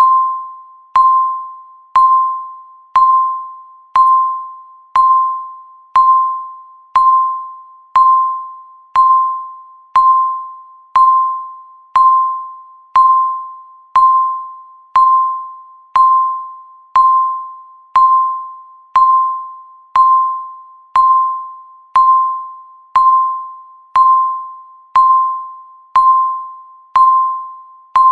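Countdown timer beeping once a second: a single clear mid-pitched electronic tone, each beep starting sharply and fading away before the next.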